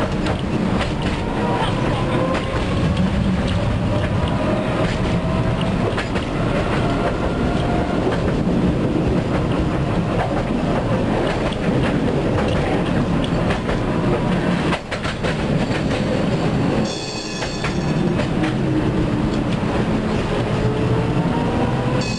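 Tatra T3SU tram running on the rails, its wheels knocking rhythmically over rail joints, with the motor whine rising in pitch as it picks up speed near the start and again near the end. A brief high ringing tone sounds about three-quarters of the way through.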